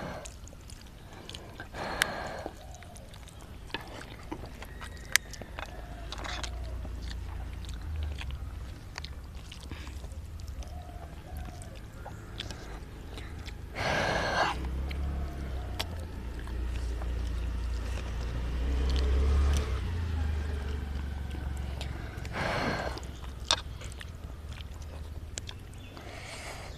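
People eating Maggi instant noodles by hand, with small wet chewing and slurping sounds and scattered clicks. A few short louder slurps or breaths stand out, the loudest about halfway through. A steady low rumble runs underneath.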